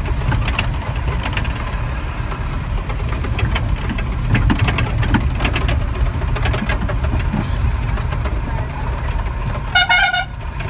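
Bus engine running as the bus drives over a rough gravel road, with a steady low rumble and many rattles and knocks from the body jolting over the stones. A brief steady tone sounds near the end.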